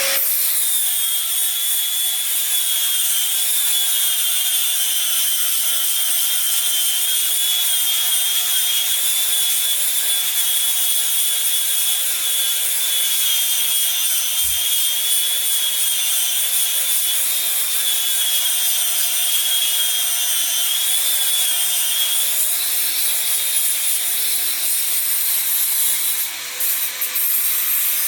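Bosch 1375A 4.5-inch, 6-amp angle grinder running and grinding steadily, with a high whine over the grinding noise; the grinding eases off briefly near the end.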